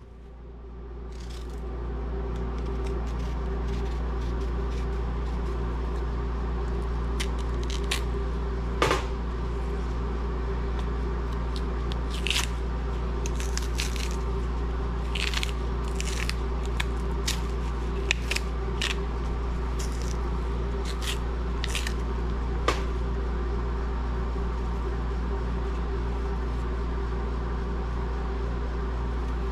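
Short scrapes and crackles of a small knife slitting and stripping the skins off green bananas, scattered over several seconds, above a steady electrical hum.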